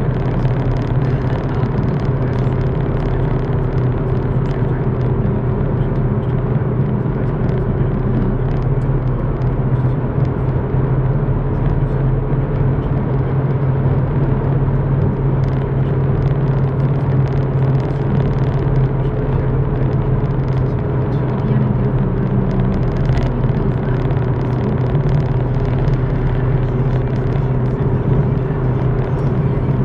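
Car driving at motorway speed, heard from inside the cabin: a steady low engine hum over constant tyre and road rumble, with no change in pace.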